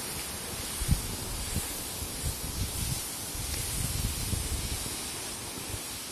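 Wind buffeting the microphone in irregular low gusts over a steady hiss, with one sharp knock about a second in.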